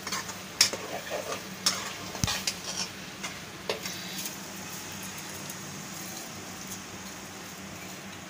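A slotted spoon scraping and clacking against a pan as whole masoor dal fried dry in its masala is stirred, over a steady sizzle. The clatter stops about four seconds in, and the frying sizzle carries on alone.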